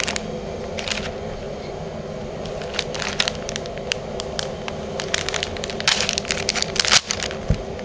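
Foil hop packets crinkling and crackling as they are handled and slit open with a knife, the clicks thickest from about five to seven seconds in, over a steady low hum.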